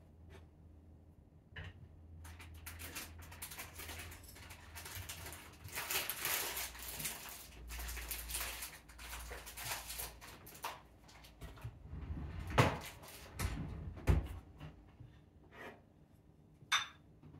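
Rustling and clattering of household things being handled, with several sharp knocks in the second half.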